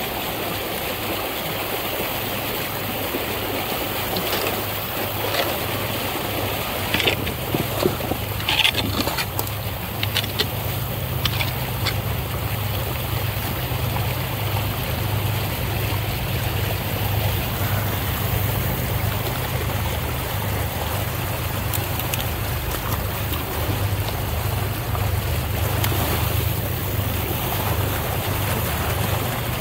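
Water gushing full out of a corrugated plastic drain pipe, a steady rushing now that the beaver clog has been cleared. A few short knocks and scrapes from the rake working debris at the pipe mouth come between about 7 and 11 seconds in.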